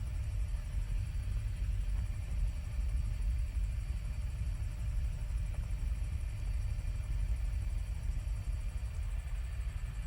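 Helicopter noise heard on board: a steady low rumble with a faint high whine above it.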